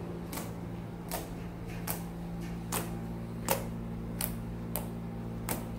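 Compound Kings fluffy slime being poked and pressed with fingertips, giving sharp little pops roughly once a second as air pockets in the slime burst. A steady low hum runs underneath.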